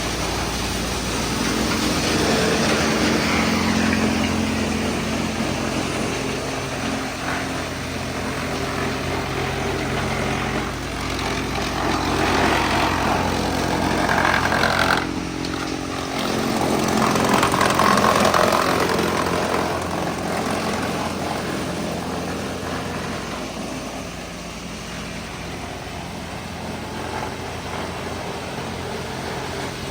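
Wood chipper running steadily, with a hum from its drive underneath and a noisier grinding layer that swells louder several times.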